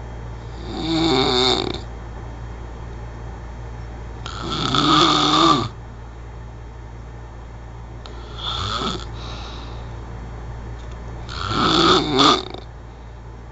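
A person snoring heavily: four snores, one about every three and a half to four seconds, each lasting about a second, over a steady low hum.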